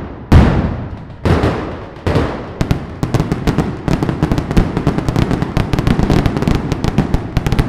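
Mascletà gunpowder firecrackers (masclets) going off. There are three heavy bangs about a second apart, then a fast string of sharp cracks, several a second, that runs on and dies away near the end.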